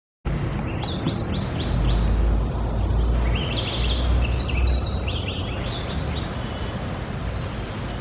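Small green parakeets calling: rapid runs of short, shrill rising chirps, a burst near the start and a longer one from about three seconds in. A low background rumble runs underneath.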